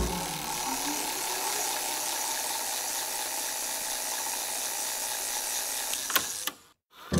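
Title-animation sound effect: a steady, hissy mechanical clatter that opens with a low thump and ends with two sharp clicks before cutting off shortly before the end.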